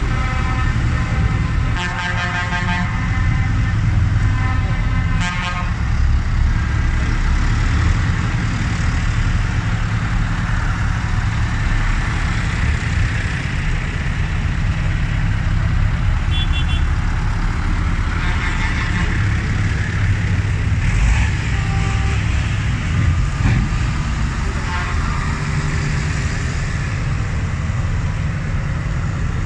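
A procession of modern diesel tractors, John Deere and New Holland, driving past close by, their engines running steadily. Horns toot several times along the way, the first about two seconds in and another around five seconds, with more blasts past the middle.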